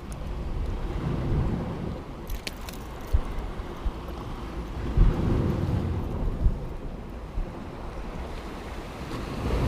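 Rough surf washing against the rocks with wind buffeting the microphone as a low, uneven rumble, broken by a few short low thumps.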